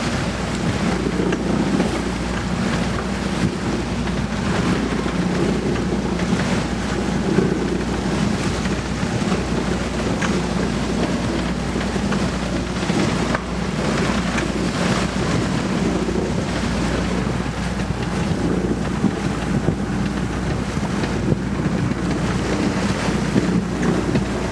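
Wind buffeting the microphone on a sailboat underway in rolling swell, with sea water rushing past the hull and a steady low hum underneath.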